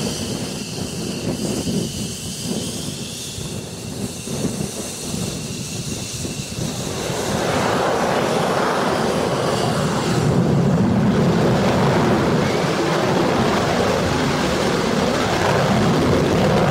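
Twin turbofan engines of F-15E Strike Eagle fighters on a takeoff run. A high whine over a steady rumble comes first; about halfway through it gives way to a louder, fuller rush of jet noise as a jet goes to full power with afterburners lit.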